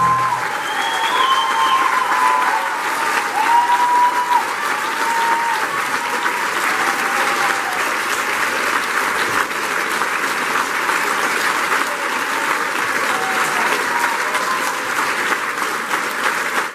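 Theatre audience applauding, with a few cheering voices in the first few seconds; the applause cuts off suddenly at the end.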